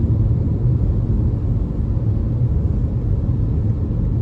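Car driving on a rain-wet road, heard from inside the cabin: a steady low rumble of engine and tyre noise.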